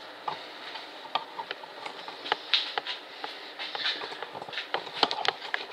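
Light, irregular clicks and taps of small hard objects being handled on a work surface, a few each second.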